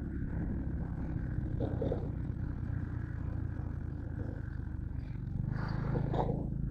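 A steady low engine rumble, like a motor vehicle running.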